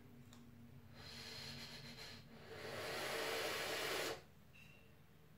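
A puff drawn through a Wotofo Troll dripper atomizer on a vape mod: a hiss of air pulled through the atomizer, faint at first, then louder for just under two seconds, cutting off sharply.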